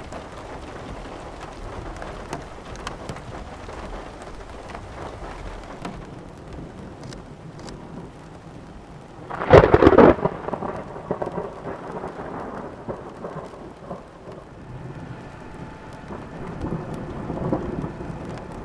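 Steady rain with a loud, sudden thunderclap about halfway through, followed by a rumble that dies away and swells again near the end.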